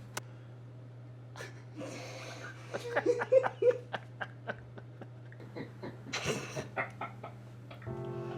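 A short burst of people laughing about three seconds in, over a steady low hum and scattered clicks.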